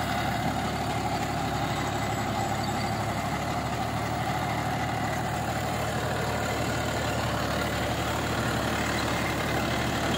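John Deere 5210 tractor's three-cylinder diesel engine running steadily under load, driving a 7-foot rotavator set fully down into the soil.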